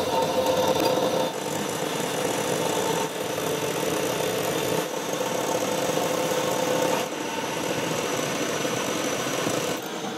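Metal lathe turning a steel bar with a carbide tool: a steady machine hum with a few held whining tones. It shifts abruptly in level and tone every couple of seconds.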